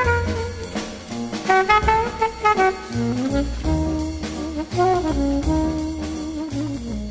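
Jazzy background music, with a brass melody over a bass line and drums.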